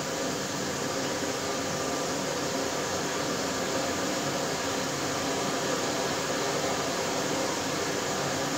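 LG direct drive front-load washer filling: water running into the drum through the fill valve, a steady even rushing hiss.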